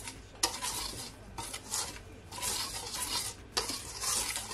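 Wire balloon whisk swishing and scraping through dry flour and cornmeal in a stainless steel bowl, in uneven strokes with a few brief pauses.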